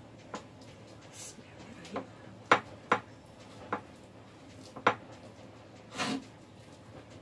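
Sounds of a meal eaten by hand from a bowl: a handful of sharp clicks and taps, spaced irregularly, the loudest about two and a half, three and five seconds in, then a short rustle about six seconds in.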